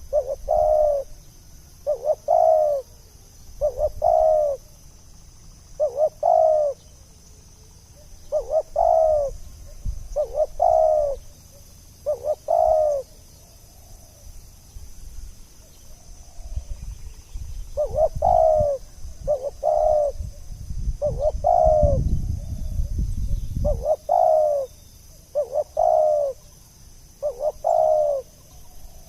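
Spotted dove (tekukur) cooing over and over, a short coo phrase every second or two, with a pause of a few seconds just before the middle. A low rumble sits under the calls for several seconds past the middle.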